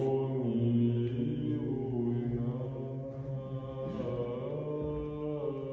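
Orthodox liturgical chant: several voices singing slow, long-held notes together in a chord, moving gently from note to note.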